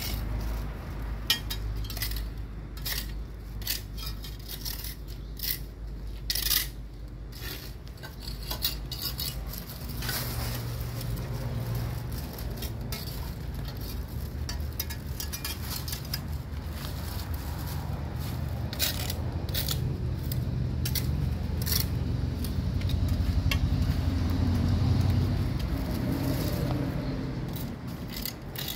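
Metal litter tongs clicking and scraping against a concrete gutter as leaves and litter are picked out, in irregular short clinks. A low rumble swells in the second half and fades near the end.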